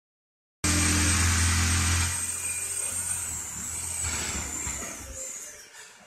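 A machine running loudly, with a deep steady hum and a high whine; the whine wavers and drops and the whole sound fades out over the last couple of seconds.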